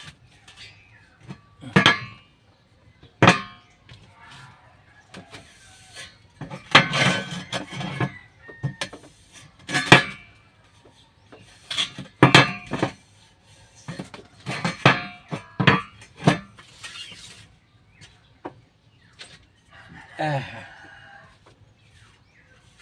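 Irregular knocks and metal clanks, struck at uneven intervals, from hands-on work on a steel table frame that is being made for welding.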